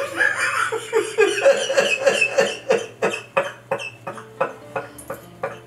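A man crying in short, rapid sobs, about four a second, growing quieter in the second half.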